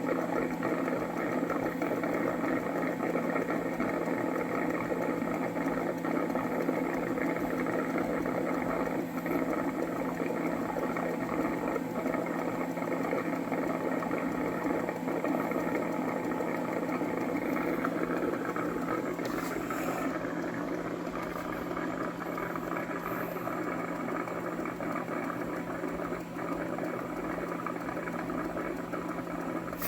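Cuckoo Power Clone robot vacuum cleaner system running: a steady motor whir with a constant low hum. The higher part of the sound drops away about twenty seconds in.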